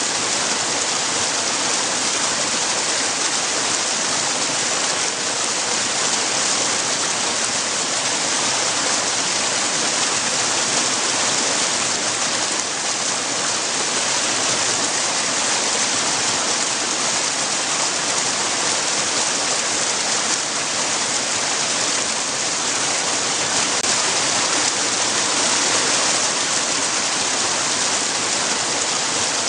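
Water rushing against rocks: a steady, even hiss of running and splashing water with no pauses or swells.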